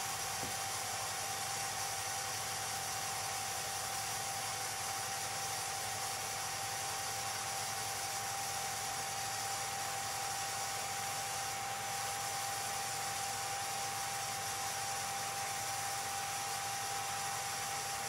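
8mm film projector running: a steady mechanical whir and hiss with a constant high whine.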